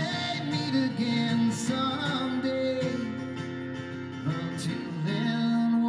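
Live music: a man singing over a strummed acoustic guitar.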